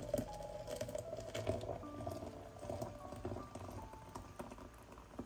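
Hot water pouring from a kettle into a glass French press onto ground coffee: a steady splashing pour as the press fills.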